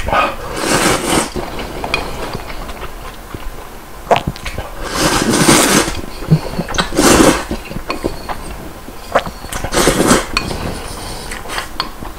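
A person slurping thick, chewy Neoguri spicy ramen noodles loudly from a bowl, four long slurps in turn, with light clicks and clinks of chopsticks on the bowl between them.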